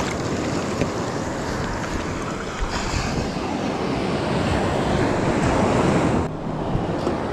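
Baltic Sea waves washing on the shore, with wind rushing over the microphone; the noise thins briefly about six seconds in, then picks up again.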